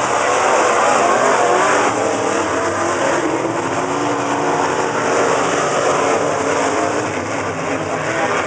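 Several dirt-track stock cars' engines revving and running as they race round a dirt oval, heard together, their pitch rising and falling with the throttle.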